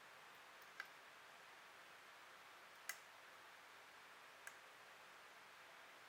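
Three faint, sharp clicks over a low steady hiss, the second one the loudest.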